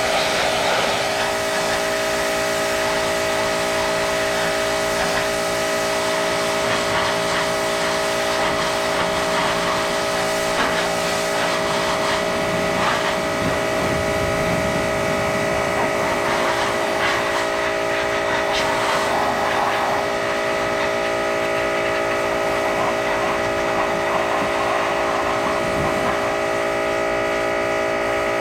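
A small motor running steadily with a constant whine over a hiss.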